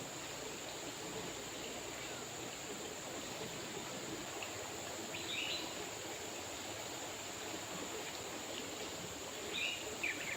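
River water flowing steadily, with a few short bird chirps about halfway through and again near the end.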